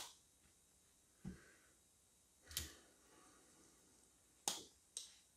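Cobi plastic building bricks being pressed together by hand: a few separate sharp clicks as parts snap into place, with quiet between them.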